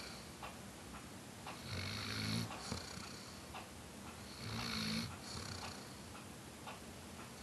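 Weimaraner snoring in its sleep: two low, pitched snores, each under a second long, about three seconds apart.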